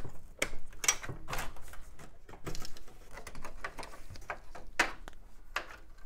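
Computer cables being pulled and rustled out of an open steel PC case, with irregular clicks, rattles and scrapes of wire and plastic connectors against the metal chassis.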